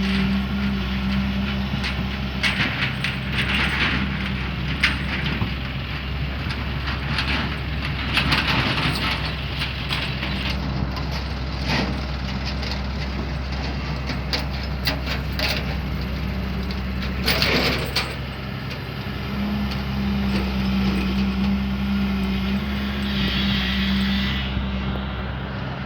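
Hyundai excavator's diesel engine running steadily, with scattered knocks and clatter as it works, and one longer, louder clattering burst about seventeen seconds in.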